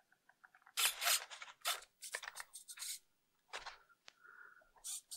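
Hands handling a foam RC model airplane and its wiring: a string of short scratchy rustles and clicks of plastic and foam, with a brief faint tone about four seconds in.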